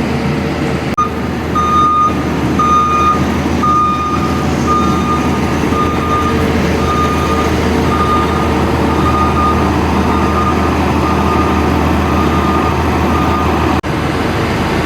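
A farm machine's reversing alarm beeping at an even pace, about one and a half beeps a second, over a steadily running engine. The beeps stop abruptly near the end.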